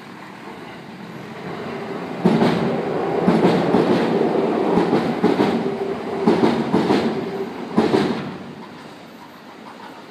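A vehicle passing: a steady hum with a run of sharp clacks builds up, is loudest for about six seconds from two seconds in, then fades away.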